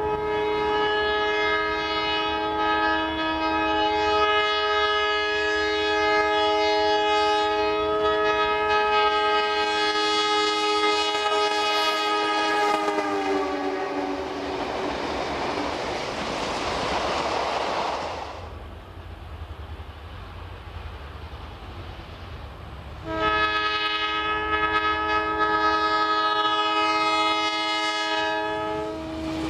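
NSW 421 class diesel locomotive's horn sounding a long multi-note blast, its pitch sliding down as the locomotive passes, followed by the noise of the train going by. About ten seconds later another long horn blast starts and is held.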